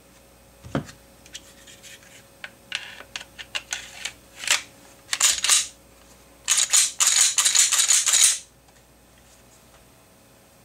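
Metal tools and pistol parts being handled on a hard work surface: one knock about a second in, then scattered clicks and light metallic clinking that build into a dense rattle and stop suddenly about eight seconds in.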